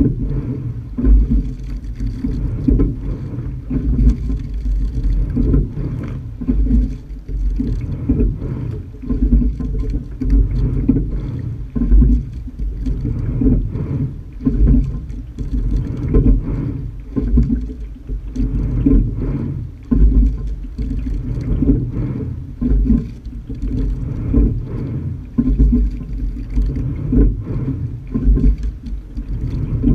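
A sculling shell under way, heard from its deck: water rushing along the hull and buffeting on the microphone, swelling and easing with each stroke about every two seconds, with light knocks through it.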